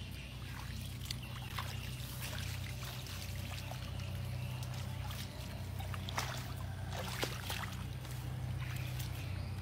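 Water splashing and trickling in short, irregular strokes over a steady low hum.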